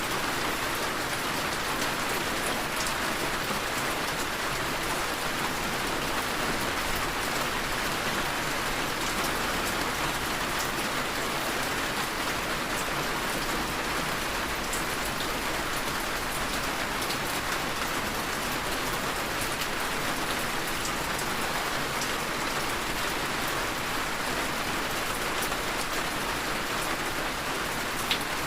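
Heavy rain falling steadily, an even hiss with scattered drop ticks, and two brief sharp drips near the end.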